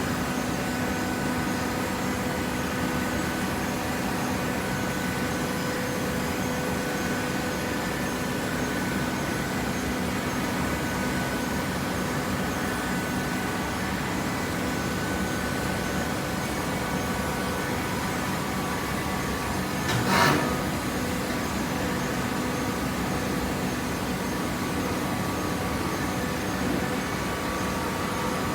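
Gasoline engine of a cardboard baler running steadily at a constant speed, with a single short knock about two-thirds of the way through.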